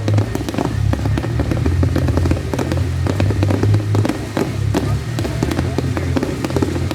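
Fireworks display going off in a dense run of rapid pops and crackles, with loud music and a heavy bass line playing underneath.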